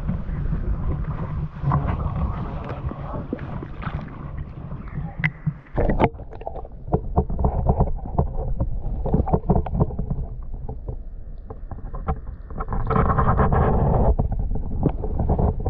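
Wind rumbling on the microphone beside a running stream. About six seconds in, a sharp splash as the camera goes underwater. After that the sound is muffled underwater stream flow with many small clicks and knocks, and a surge of rushing water near the end.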